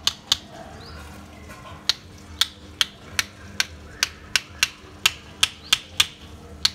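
A cooked mutton marrow bone (nalli) knocked hard against a concrete floor again and again to crack it open: a string of sharp clacks, about two or three a second, with a pause of about a second and a half near the start.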